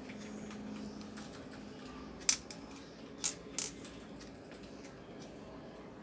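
Three sharp plastic clicks, the first the loudest and the last two close together, from hands working the opened induction cooker's plastic case and control-panel board. A faint low hum runs underneath.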